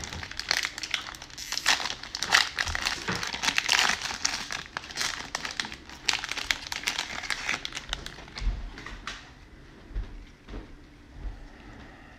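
Plastic cellophane wrapper of a Donruss baseball card pack crinkling and tearing as it is opened by hand, a dense crackle that dies away about seven and a half seconds in. After that comes only faint handling of the cards, with a few soft thumps.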